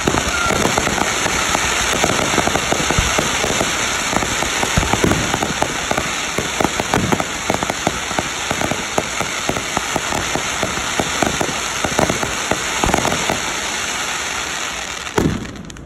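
Ground fountain firework spraying sparks: a steady loud hiss thick with fine crackling, which stops abruptly near the end.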